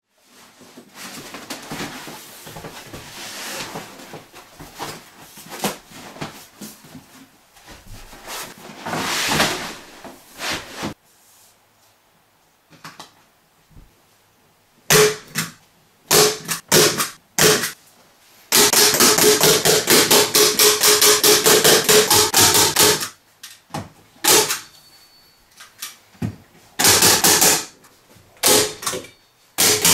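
Hand tool striking fasteners into the wood framing to secure a PVC shower pan liner: sharp single blows, then a fast, even run of about five blows a second for several seconds, then more strikes. Before them, a stretch of irregular rustling and scraping noise, then a brief lull.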